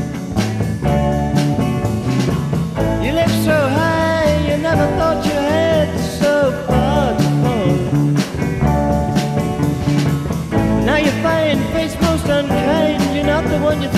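Rock band recording, instrumental passage: a lead line of bending, wavering notes over bass and a steady drum beat.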